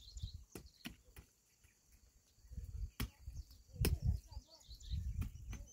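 Small wooden-handled hand hoe striking and scraping into dry, stony soil: about six sharp knocks at irregular intervals, with low scraping between them.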